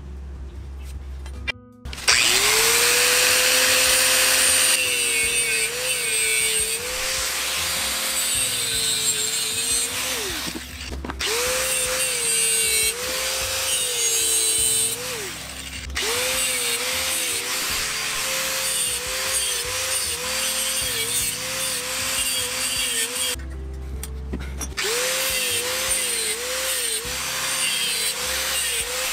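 Angle grinder with a thin cutting disc spinning up about two seconds in and cutting notches into a steel pipe. The motor's pitch sags again and again as the disc bites into the metal and recovers as it eases off. It stops briefly a few times and spins up again.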